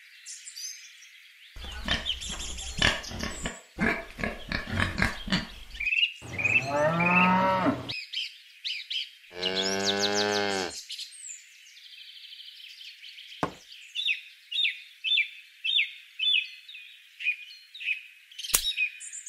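Farmyard sound effects: small birds chirping throughout, with a run of short, rapid animal calls from about a second and a half in, then two cow moos, the second longer and steadier, around six and nine seconds in. Near the end, a string of short bird chirps repeats about twice a second.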